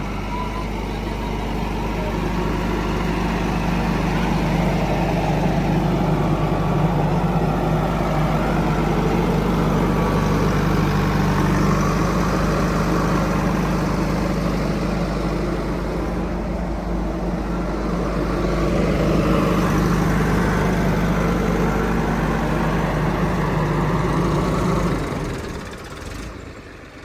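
Heavy diesel engine of earth-moving or farm machinery running steadily, dropping away fairly suddenly near the end.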